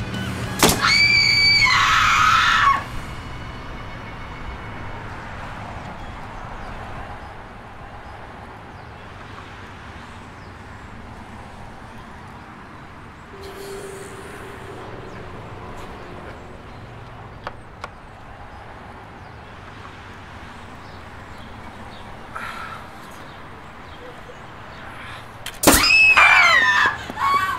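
A staple gun snaps into a wooden utility pole, and at once a shrill, high-pitched scream rings out for about two seconds as the pole's cry. Low street traffic fills the long stretch between. Near the end a second staple snaps and a second scream follows, wavering and falling in pitch.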